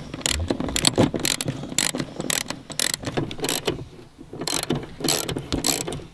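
Socket ratchet wrench clicking in quick runs as it undoes a bolt on a car's interior trim, with a short pause about four seconds in.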